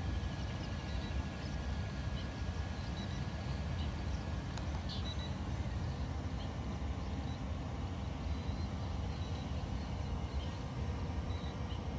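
Two small foldable camera quadcopters, an M3 Max and an F198, hovering, with a faint steady propeller buzz over a steady low rumble.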